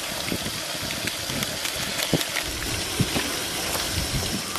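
Steady rushing of flowing river water, with a few light knocks and clicks over it.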